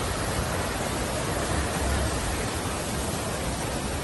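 Steady rushing hiss of falling water, even and unbroken, with a brief low rumble about two seconds in.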